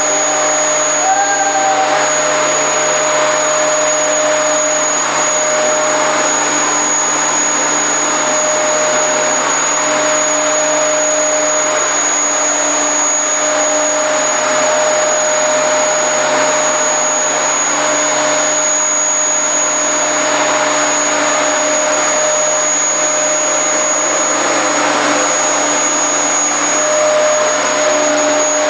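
Vacuum cleaner running steadily: a constant rush of air with a high whine that does not change throughout.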